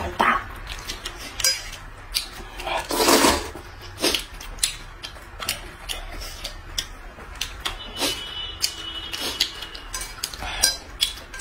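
Eating sounds: chopsticks clicking against bowls and plates, and noodle slurping, with two longer slurps, one right at the start and one about three seconds in.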